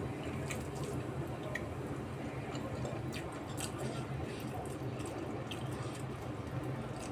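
A person chewing food close to the microphone, with scattered wet mouth clicks and smacks, over a steady low hum.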